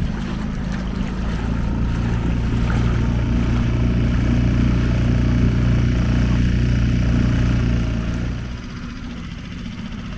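Small boat's outboard motor running steadily under way, with water rushing along the hull; about eight and a half seconds in it throttles back and the engine sound drops.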